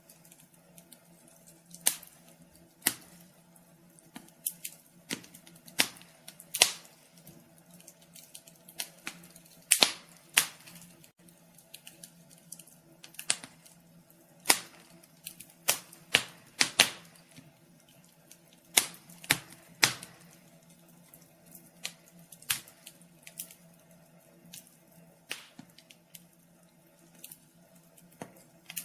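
Wood fire crackling in a fireplace: irregular sharp pops and snaps, sometimes several in quick succession, over a faint steady low hum.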